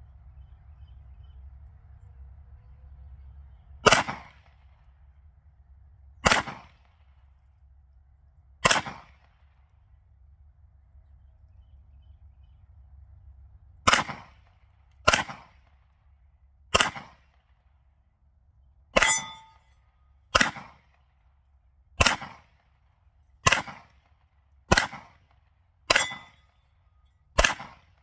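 Glock pistol fired thirteen times at steel targets: three slow shots, a pause, then ten more at a steadier pace. Several of the later shots are followed by a brief metallic ring of a steel target being hit.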